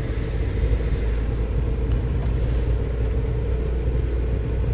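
Steady low engine and road rumble inside the cab of a GAZelle Next light truck while driving, with a faint steady hum above it.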